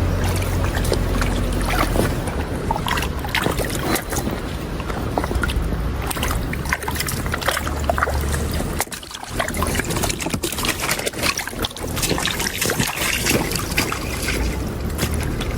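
Irregular splashing and sloshing in shallow water, over a steady low rumble.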